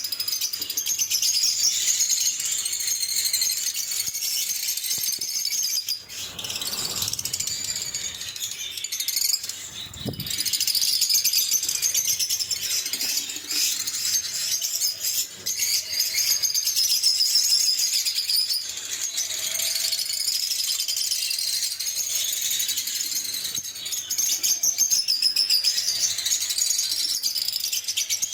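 Lovebirds chattering nonstop in shrill, rapid chirps and squeaks, with a brief low thump about ten seconds in.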